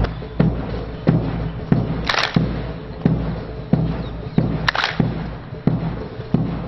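A bass drum beats a steady slow cadence, about one and a half beats a second, with a cymbal crash on every fourth beat, keeping time for a drill display.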